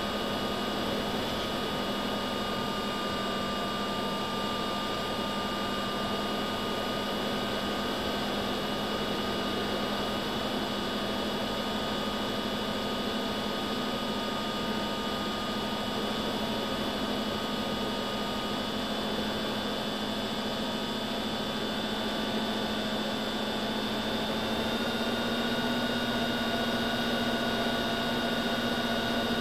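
FPV aircraft's electric motor and propeller running steadily, heard from the onboard camera as a steady whine with a rushing noise; about three quarters of the way through the motor pitch steps up a little and it gets slightly louder as the throttle is raised.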